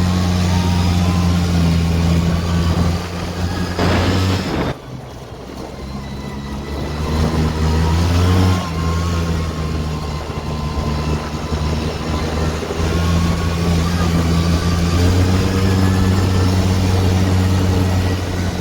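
Polaris Xpress 400 ATV's two-stroke engine running under throttle while the machine is ridden, freshly rebuilt with new piston rings and cylinder. The engine note drops off sharply about five seconds in, picks back up over the next few seconds, and then holds steady.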